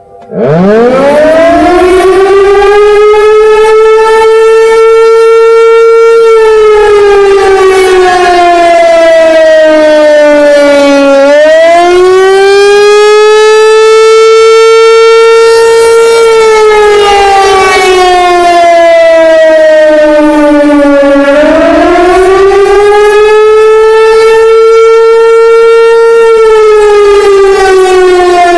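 American Signal T-128 outdoor warning siren sounding the attack signal, loud. It winds up from silence over about six seconds, then wails, its pitch falling and rising in slow cycles of about ten seconds.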